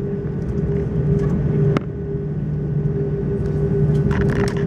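Cabin noise of an Airbus A340-600 taxiing: a steady low hum with a steady tone above it. A click and a sudden small drop in level come about two seconds in.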